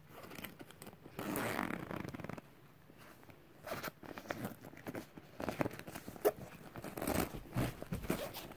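Zipper on a nylon Kipling backpack pocket being pulled open: one longer rasping run about a second in, then a series of short rasps and clicks as the pocket is worked open and a hand goes inside.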